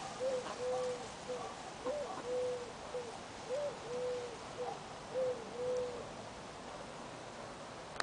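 A dove cooing in repeated three-note phrases, short-long-short, about four times over, stopping some six seconds in.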